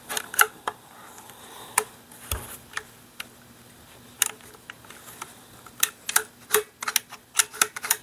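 Sharp metallic clicks and clacks of a Rossi Gallery .22 pump-action rifle's action being worked by hand, its cartridge lifter moving up and down. The clicks come singly at first, then faster and closer together over the last two seconds or so.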